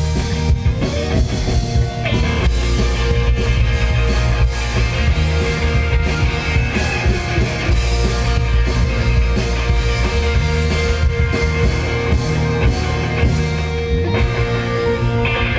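Live indie rock band playing loudly: electric guitar, bass guitar and drum kit.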